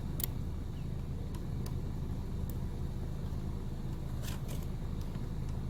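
Car engine idling steadily, with a few scattered sharp clicks and cracks as a plastic emblem is pried off with a flathead screwdriver.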